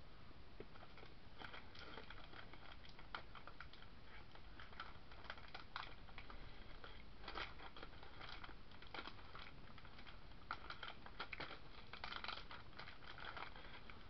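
Faint, irregular soft clicks and crackles close to the microphone: mouth and handling noises of someone eating mince pie fudge.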